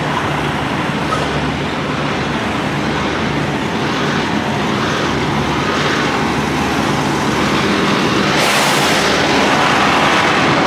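Steady rumble of idling semi-truck diesel engines and truck-stop traffic, with wind on the microphone. A short hiss about eight and a half seconds in.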